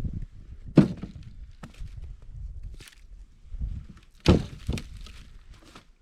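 Heavy wooden thunks of firewood blocks being handled. The two loudest come about a second in and just past four seconds, with lighter knocks and crunching between.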